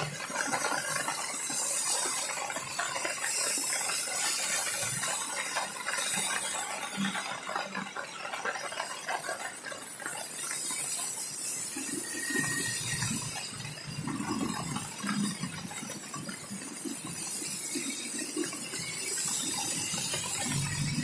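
Rain falling steadily on a wet street and pavement, an even hiss. Vehicles pass on the wet road with a low rumble and tyre swish, one near the end.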